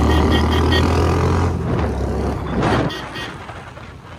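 Motor vehicle running with a steady low rumble, interrupted by a quick run of high beeps in the first second and a few more near three seconds in. The rumble then fades down.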